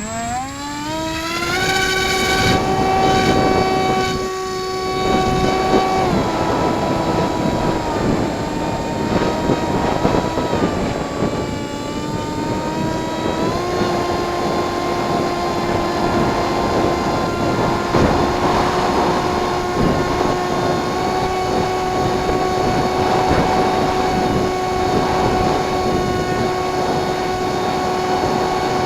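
Firstar RC plane's motor and propeller running: the whine climbs steeply as the throttle comes up, drops a step about six seconds in, rises again near the middle and then holds steady, with wind rushing across the microphone.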